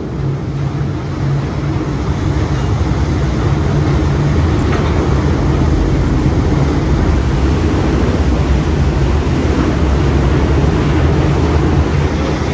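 Car ferry's diesel engines and propellers working hard as it pulls away from the dock: a deep, steady engine rumble over churning propeller wash. It builds over the first couple of seconds, then holds.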